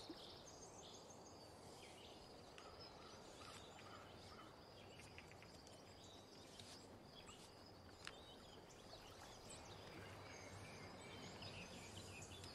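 Faint outdoor evening ambience: a soft background hiss with scattered bird chirps and insect trills, and one faint click about eight seconds in.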